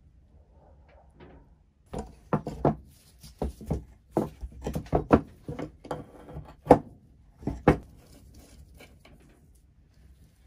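Metal clinks and knocks from dismantling a rusty stirrup pump with an adjustable wrench. After a quiet start comes a run of irregular sharp knocks for several seconds, the two loudest about a second apart, before it settles again.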